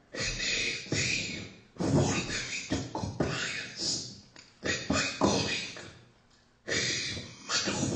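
A man's voice speaking close to the microphone, in short phrases with sharp, hissy consonants and breaths, and a brief pause about six seconds in.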